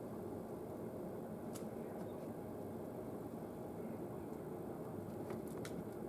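Steady low background rumble with a few faint sharp ticks: one about a second and a half in, and three in quick succession near the end.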